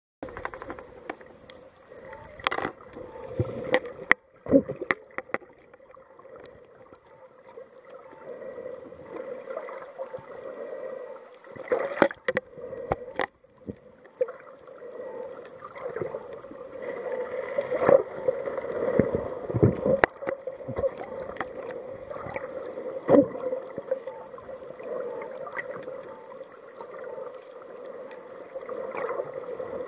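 Muffled underwater sound from a camera held below the surface: steady gurgling water, with scattered sharp knocks and clicks.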